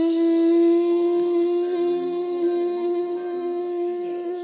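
A person's voice holding one long, steady hummed note at an unchanging pitch, slowly getting quieter.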